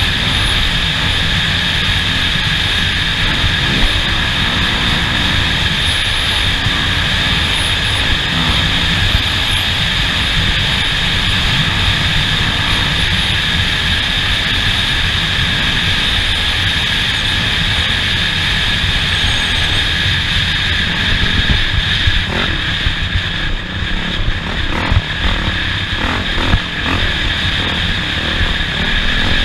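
Off-road vehicle driving the dirt course, its engine running with a steady drone, with a run of knocks and rattles from about twenty-two seconds in.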